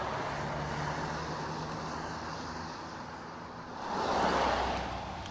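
Road traffic on wet pavement after rain: a steady hiss of tyres, with one vehicle passing about four seconds in, swelling and fading.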